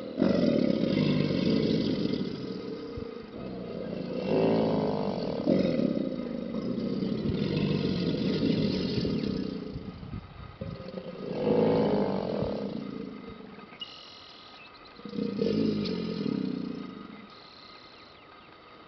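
A chorus of American alligators bellowing in mating season: low, drawn-out bellows from several animals that swell and fade in overlapping waves, about five in all, dying away near the end.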